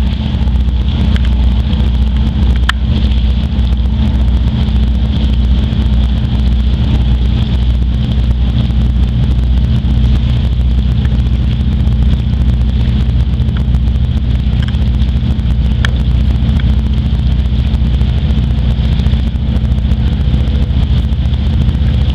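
Steady low drone of a passing tour boat's engine, with wind buffeting the microphone.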